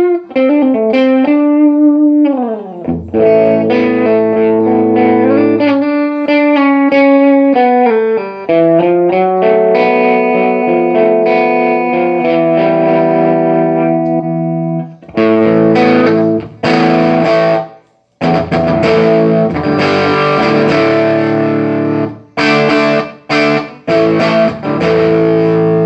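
Electric guitar played through a stereo Line 6 Flextone III modelling amp, being tested after its pots and switches were replaced. The first half has sustained notes and a sliding pitch bend. From about halfway come heavily distorted chords, cut off sharply several times.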